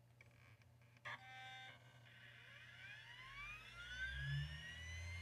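Iomega Jaz drive spinning up its cartridge disk just after power-on: a click about a second in, then a faint whine that climbs steadily in pitch, with a low motor hum building beneath it.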